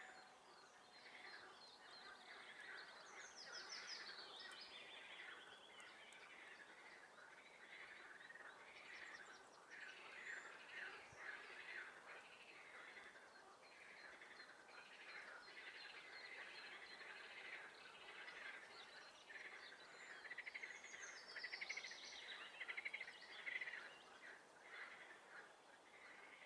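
Chorus of swamp frogs calling in many overlapping pulsed trills, with songbirds chirping faintly among them; the chorus swells louder near the end.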